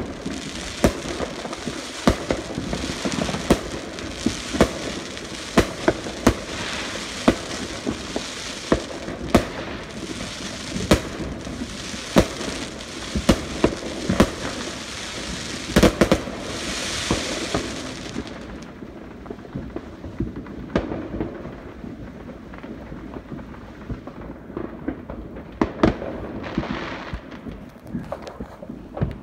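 Fireworks going off: a rapid series of sharp bangs and crackles from aerial bursts, thinning out after about two thirds of the way to a few scattered, quieter pops.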